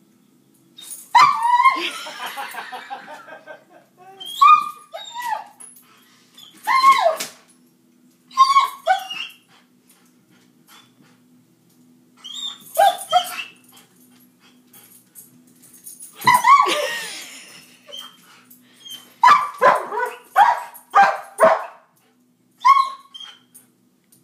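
A dog barking and yipping in separate bursts, some calls drawn out into whines, with a quick run of short barks near the end, while it chases a laser light across the floor.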